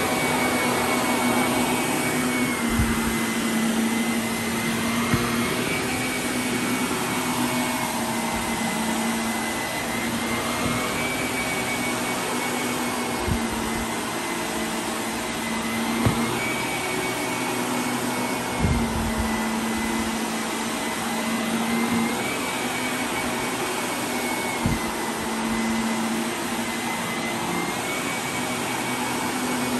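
Shark upright vacuum cleaner running steadily while it is pushed back and forth over carpet. Its motor pitch rises and falls slightly every few seconds, with a few short low thumps.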